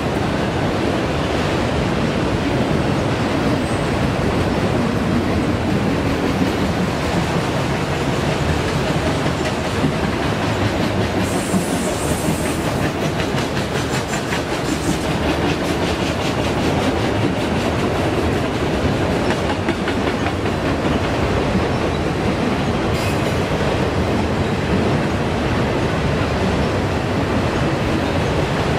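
Freight train of autorack cars rolling past steadily, the wheels clicking over the rail joints. A few brief, high-pitched wheel squeals come in, about eleven seconds in and again near the end.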